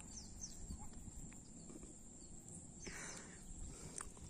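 Faint outdoor ambience: a steady high hiss with a few short falling chirps, over a low rumble, and a brief rustle about three seconds in.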